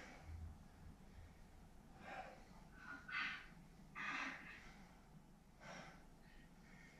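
A person breathing hard under exertion: about four short, forceful breaths out, spaced a second or so apart.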